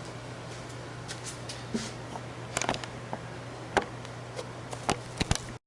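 Scattered light clicks and taps over a steady low hum; the sound cuts off abruptly near the end.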